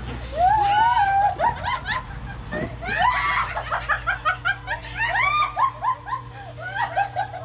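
People laughing in quick, repeated bursts, with high-pitched squeals, over a steady low hum.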